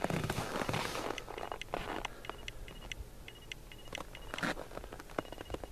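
Footsteps crunching in snow, loudest in the first second, then a few softer crunches and taps.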